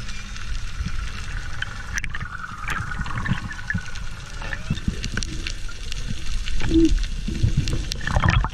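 Water sloshing and gurgling around the microphone over a steady low rumble, with scattered small clicks and crackles.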